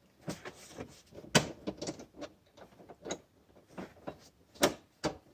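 Irregular metallic clicks and knocks from a wrench and door latch hardware being worked as a lock nut on the latch lever bolt is snugged, with the sharpest knocks about a second and a half in and again near the end.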